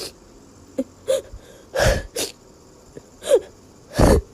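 A cat sneezing several times in short sharp bursts, with brief squeaky falling calls in between.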